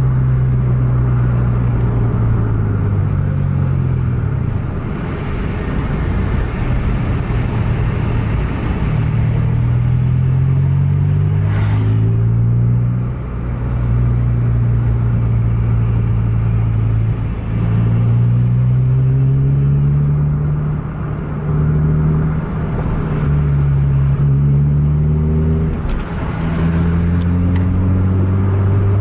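A car engine heard from inside the cabin, pulling hard and repeatedly climbing in pitch, then dropping back as gears change. There is a brief sharp noise about twelve seconds in.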